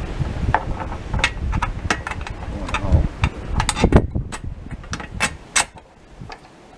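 Irregular clicks and knocks of metal parts being handled, a bolt being fitted through a hole in the fence; the knocks thin out near the end.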